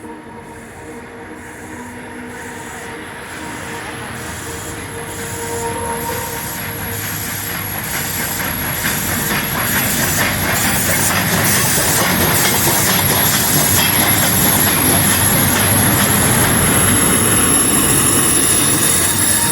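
Steam-hauled train approaching: a rumble and rattle that grows louder over the first ten seconds and then holds steady, with a regular beat that quickens as it nears.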